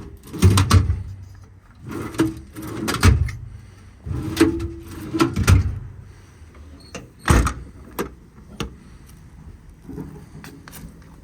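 Metal compartment doors and latches of a service truck body being handled: a run of knocks and clanks, with a sharp loud knock about seven seconds in and a few lighter clicks after it.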